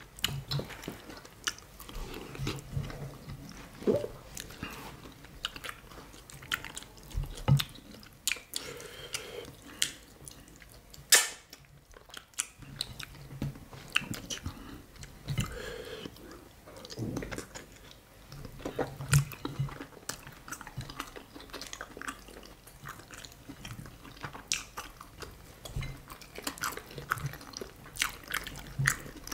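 Close-up chewing and wet mouth sounds of people eating fufu with banga soup by hand: scattered lip smacks and sharp clicks of the mouth, irregular throughout.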